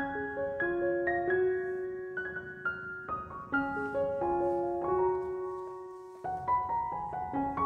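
Background piano music: a gentle melody of single struck notes over soft chords, with the phrase starting again near the end.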